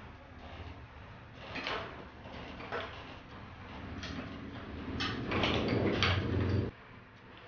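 Clicks and knocks of bicycle parts being handled during assembly, then a rushing noise with a low hum that swells for a couple of seconds and cuts off suddenly near the end.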